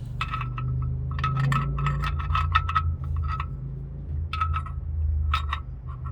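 Ratchet wrench clicking in quick runs as it works the oil drain plug bolt, in several bursts with pauses between. The bolt is not tightening easily.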